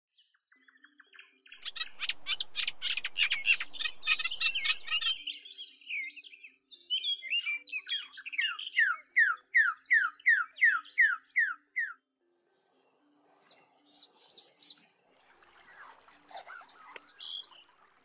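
Birds calling in changing passages: a dense burst of rapid chattering calls, then a run of about ten clear downward-slurred whistles at roughly two a second, then scattered short chirps. Faint, soft background music runs underneath.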